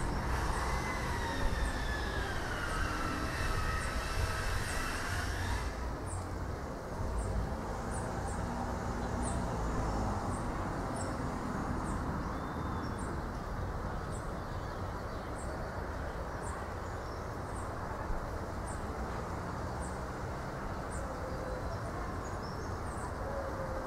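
Wind rumbling on the microphone as a breeze blows through the coconut palms. For the first six seconds wavering whistling tones glide up and down. After that a faint high chirp repeats a little more than once a second.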